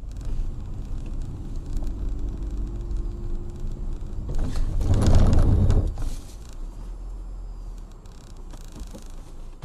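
Car driving on a slushy road, heard from inside the cabin: a steady low engine and road rumble. A loud rushing surge comes about four and a half seconds in and lasts about a second and a half, then the rumble settles back lower.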